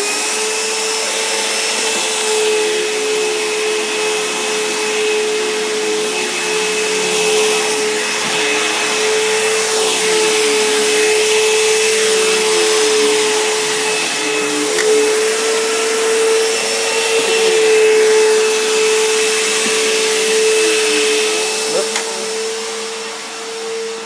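Bissell CleanView Helix bagless upright vacuum running on carpet: a steady motor hum over a rushing airflow hiss, easing slightly near the end.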